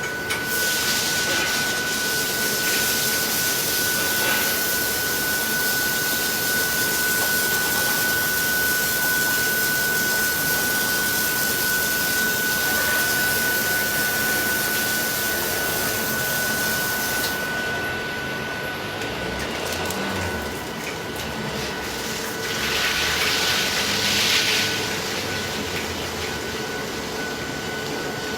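Car wash machinery running with water spraying: a steady mechanical hiss with a high whine through it. The hiss thins about two-thirds of the way in, and a louder rush of spray follows near the end.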